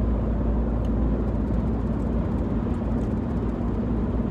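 Steady low rumble of road and engine noise inside a car's cabin while it is being driven.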